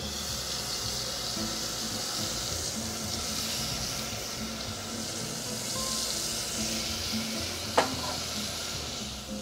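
Chile-tomato mole base sizzling as it is poured through a mesh strainer into hot oil in a saucepan, the sauce base frying. There is one sharp tap near the end.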